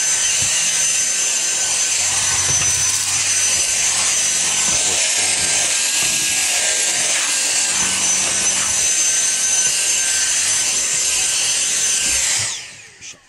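Vacuum cleaner running steadily with a high motor whine. It is switched off near the end, and the motor winds down in a falling whine.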